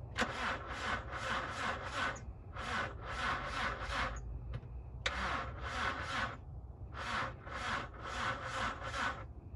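Rhythmic rasping strokes of a hand tool worked back and forth against the car's front end, about three strokes a second, in runs of four or five with short pauses between runs.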